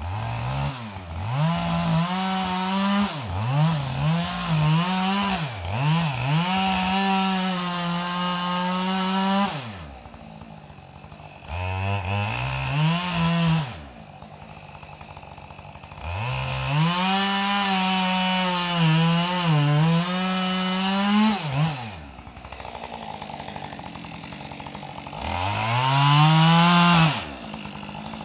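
Chainsaw cutting into the trunk of a large pine being felled. The engine revs up to full speed in four runs of a few seconds each, the first and longest with several dips in pitch, and drops back to idle between runs.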